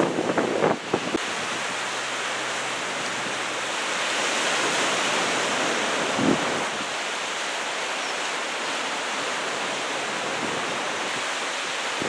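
Waves breaking on the shore, a steady rush of surf, mixed with wind buffeting the microphone. Gusty bursts come in the first second and once more briefly about halfway through.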